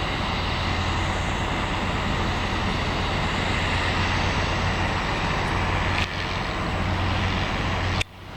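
Airplane engines running steadily as a plane passes close by on its landing, a loud even rush with a low hum, cutting off abruptly near the end.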